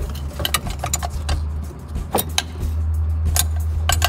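Repeated sharp metallic clinks and taps, like hand tools being handled during work on a car, over a steady low hum.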